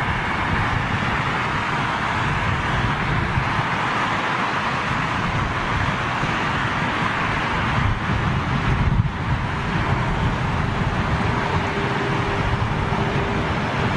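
Steady outdoor rumble and hiss of distant engine noise, with wind buffeting the microphone.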